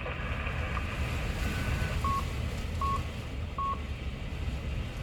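Three short electronic beeps of the same pitch, about 0.8 s apart, from a radio repeater's control tones as it is switched back to normal operation. They sound over a steady low hum and hiss from the radio channel.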